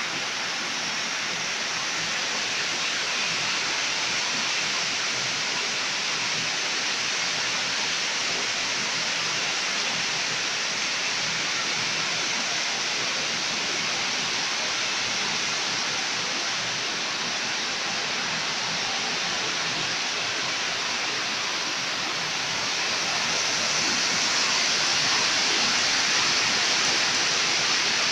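Heavy rain falling steadily, a dense even hiss, heard at first from inside the house. About three quarters of the way through it grows louder as the open doorway and the downpour outside come nearer.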